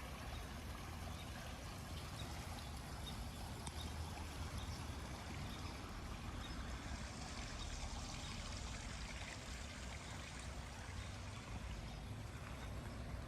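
Water running steadily in a steady rush, a little brighter for a few seconds past the middle.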